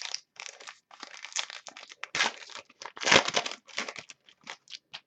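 Crinkling and rustling of a trading-card pack's wrapper being handled, in irregular bursts for nearly five seconds.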